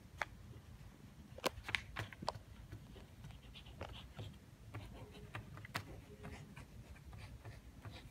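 Faint scratching of a pencil writing by hand on a few sheets of paper on a table, with scattered short strokes and light taps.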